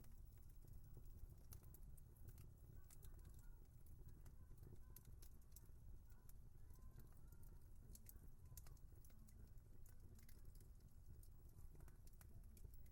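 Wood fire crackling faintly: frequent, irregular sharp pops and snaps over a low steady rumble.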